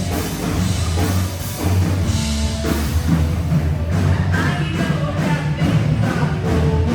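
Rock-style music with drums, its texture changing about four seconds in.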